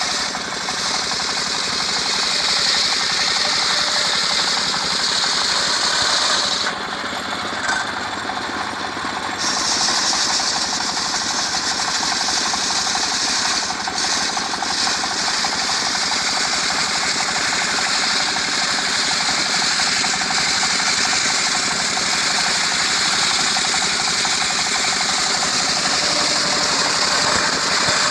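Engine-driven circular sawmill running, its blade cutting mango wood into boards. It makes a steady, loud mechanical noise with a high hiss, which drops away briefly about seven seconds in and then comes back.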